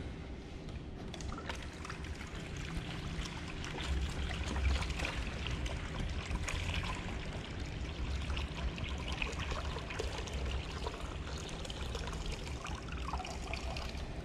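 Dirty water and rice being poured out of a plastic car coolant reservoir into a plastic basin, a continuous pour and trickle with many small clicks: the rice-and-bleach cleaning mix being drained from the tank.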